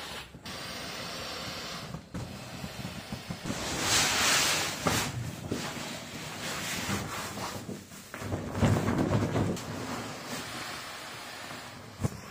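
Wind rushing over the microphone, swelling and easing, in a few short pieces that cut off abruptly.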